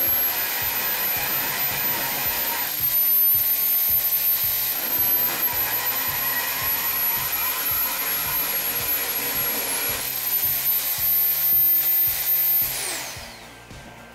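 Drill press boring through a metal nut: the motor whines steadily over the grinding of the bit cutting metal, its pitch shifting a little as the load changes. Near the end the motor is switched off and winds down.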